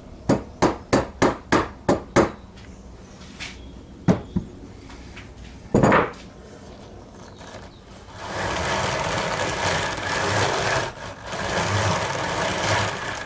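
A wooden mallet knocking on the wooden frame of a homemade drum carder, a quick run of seven taps at about three a second, then a few single knocks, to shift the drum back into alignment. In the last five seconds a steady rough scratchy noise follows.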